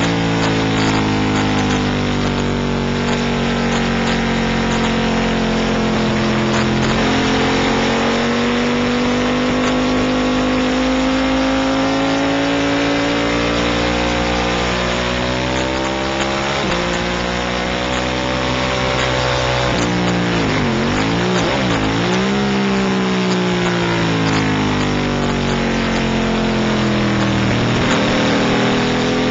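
Race motorcycle engine running hard at high revs, heard from a camera mounted on the bike with wind rushing over the microphone. The pitch slides up and down with the throttle, drops sharply with quick blips about two-thirds of the way through as the rider downshifts and brakes for a corner, then climbs again near the end.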